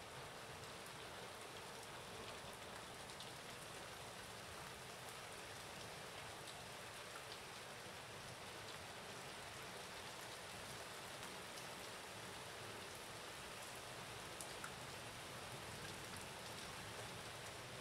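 Faint steady rain, with a few light ticks here and there.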